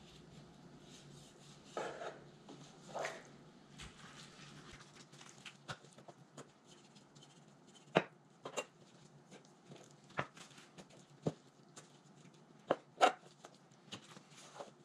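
Chef's knife trimming fat from raw boneless skinless chicken thighs on a white plastic cutting board: irregular sharp knocks of the blade on the board, with a couple of softer scrapes about two and three seconds in and the loudest knocks about eight seconds in and near the end.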